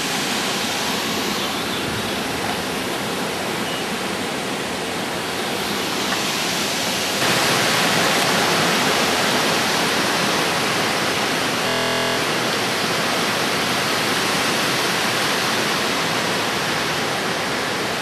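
Waterfall and gorge creek rushing in a steady wash of falling and running water, growing louder about seven seconds in. A brief digital stutter breaks in near twelve seconds.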